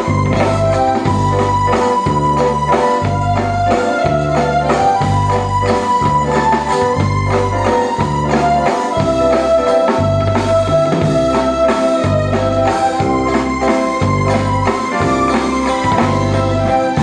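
Waltz music playing: a held melody over a bass that repeats at an even pace.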